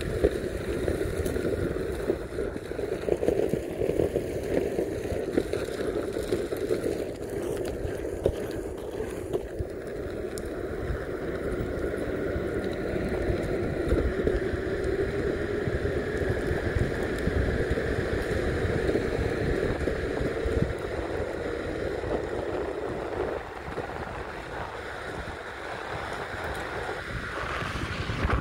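Meepo Mini 2 electric skateboard on Cloud Wheels riding along, a steady rolling rumble of wheels and drive over dirt and then pavement. Wind buffets the microphone throughout.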